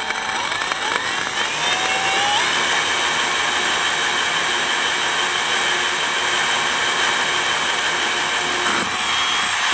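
Cordless 18-volt drill boring slowly through a glazed ceramic tile. Its motor whine climbs in pitch over the first couple of seconds, then holds steady with the grinding of the bit in the tile, which ends in a clean finished hole.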